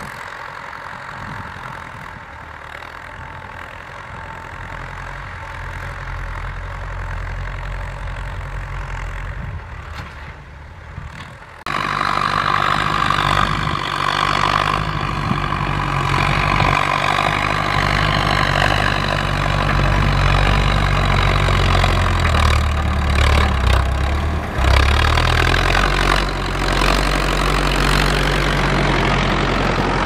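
Ford farm tractor's diesel engine running under load while pulling a disc plough through dry soil. About twelve seconds in the sound jumps louder and closer, with a steady whine over the engine. The engine note dips briefly a little after twenty seconds.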